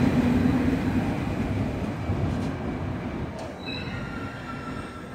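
SNCF TGV Duplex double-deck high-speed train pulling out at low speed, its rolling and motor noise fading steadily as the rear power car draws away. A thin, high wheel squeal comes in about three and a half seconds in.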